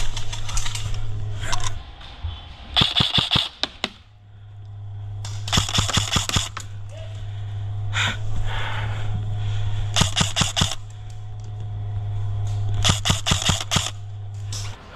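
Airsoft guns firing full-auto bursts, a rapid clatter of shots in four bursts of about a second each. A steady low hum runs underneath and cuts off near the end.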